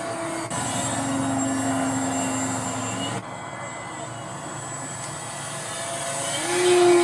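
A small airplane's engine running in flight, with a steady tone that shifts abruptly twice and grows louder near the end as the plane comes close.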